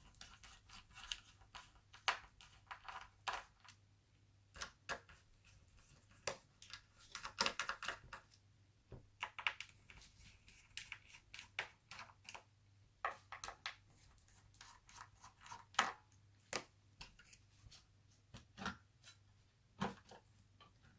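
Irregular clicks, taps and light scrapes of a laptop hard drive being worked loose and slid out of its bay, over a faint steady low hum.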